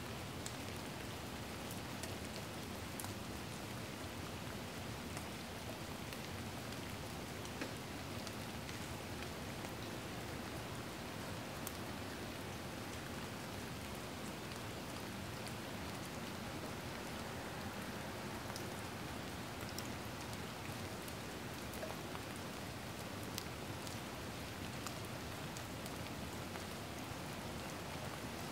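Steady, even rain-like hiss with faint scattered ticks.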